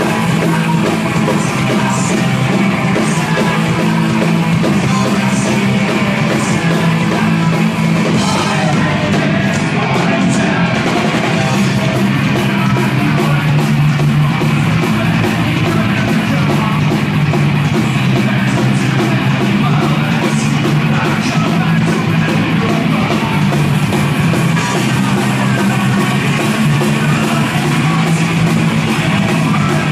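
Live hard-edged rock band playing loud: distorted guitar, bass and drums with crashing cymbals, and a singer shouting over them.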